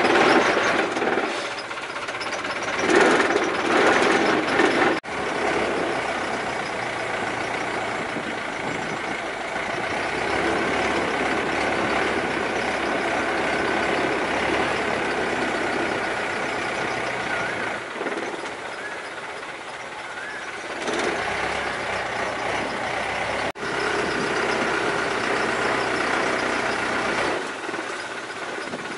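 Engine of a longtail canal boat running steadily under way, louder where it revs near the start and again about three-quarters of the way through. The sound breaks off abruptly twice.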